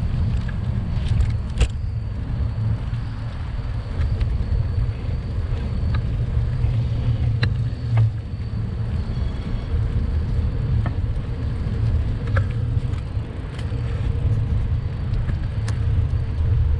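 Steady low rumble of wind and road noise picked up while cycling along a city street, with a few faint clicks.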